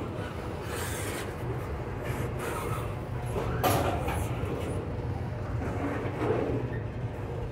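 Double-stack container well cars of a freight train rolling past over a short bridge: a steady rumble of steel wheels on rail, with a few sharper clacks as wheel sets pass, the loudest about halfway through.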